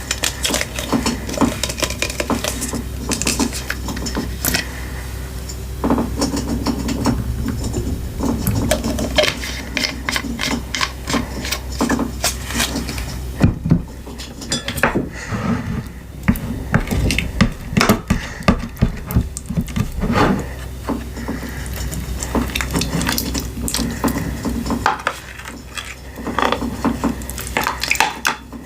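Sticky slime being stirred and squished, giving dense, quick clicks and crackling pops, with a couple of brief quieter stretches.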